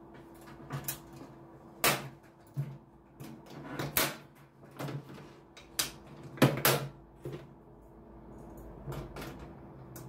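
Sharp knocks and clicks of a diesel heater's sheet-metal casing being handled and fitted back together, a dozen or so irregular strikes with the loudest about two, four and six and a half seconds in.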